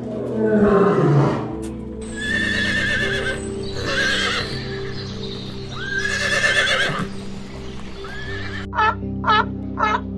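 Horse whinnying several times over background music with steady held notes, the first whinny falling steeply in pitch. Near the end a run of short, sharp calls begins, about two a second.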